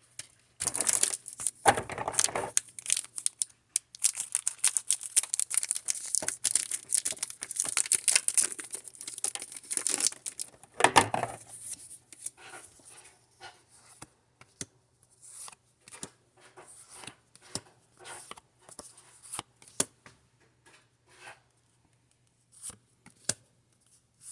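Pokémon booster pack foil wrapper being torn open and crinkled: dense crackling for the first half, with two louder rips, about 2 s and 11 s in, then fainter, scattered crinkles.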